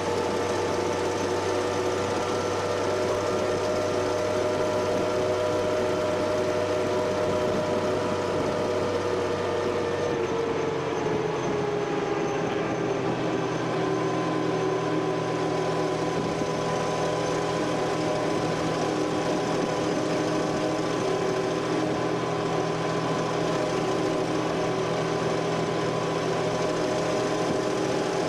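Vehicle engine running steadily. About ten seconds in its pitch drops a little and settles lower as the revs ease.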